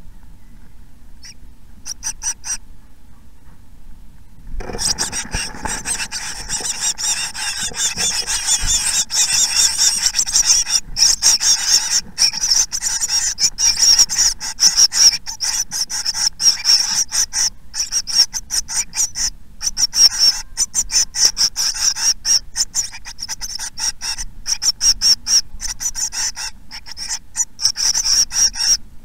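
A brood of tit nestlings begging inside a nest box: a dense, high-pitched chorus of rapid rasping calls that starts suddenly about five seconds in and keeps going, with quick scratchy clicks from the chicks moving.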